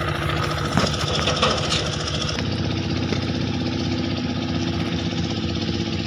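An engine running steadily with a fast, even rhythm. A higher hiss over it drops away about two and a half seconds in.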